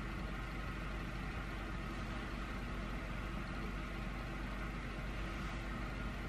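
A steady low hum with a hiss over it, unchanging, like a motor or appliance running in the background.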